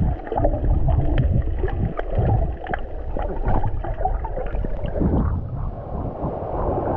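Muffled underwater sound from a snorkeler's dive: water rushing and gurgling around the camera, with many short scattered clicks and little high end.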